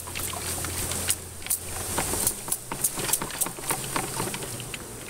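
Wooden bee vacuum box being bumped and knocked to shake a cluster of honey bees down onto the hive frames: a run of short, irregular knocks and taps. A low steady hum runs under the first two seconds and then stops.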